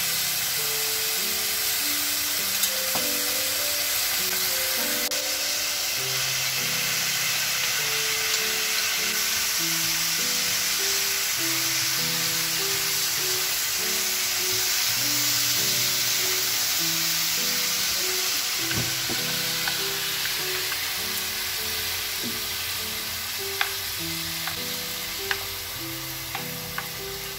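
Pork slices and vegetables sizzling in oil in a frying pan as they are stir-fried with chopsticks, with a melody of background music underneath. A few sharp clicks near the end.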